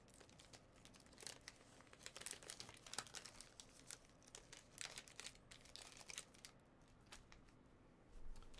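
Faint, irregular crinkling and rustling of a trading card pack and cards being handled, with scattered light clicks.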